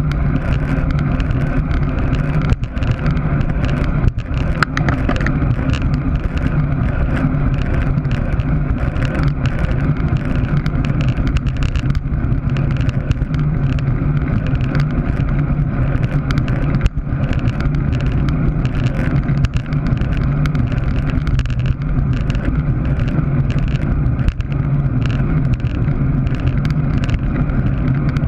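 Steady wind rush buffeting the camera's microphone as a road bicycle rides fast in a racing group, with rumble from the tyres on the asphalt and a few short knocks.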